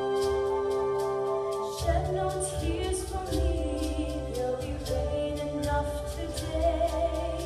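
Musical theatre number: a held keyboard chord, then about two seconds in a female solo voice begins singing over the keyboard accompaniment, heard as recorded from the audience.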